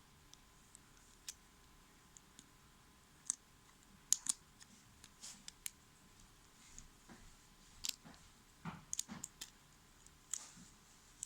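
Scattered light plastic clicks and snaps from a Bakugan Dragonoid Ultra toy being handled and worked at, as its parts are pushed toward the folded ball form. The clicks are sparse at first and come thicker from about four seconds in.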